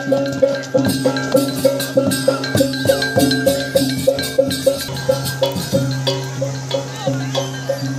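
Balinese gamelan playing: a small gong strikes a steady beat about twice a second over sustained lower gong tones, with quick cymbal and drum strokes running through it.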